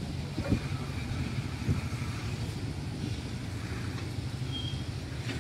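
Fully loaded BOXN covered freight wagons rolling past on broad-gauge track: a steady low rumble of steel wheels on rail, with a few sharp knocks. A brief high squeak comes about four and a half seconds in.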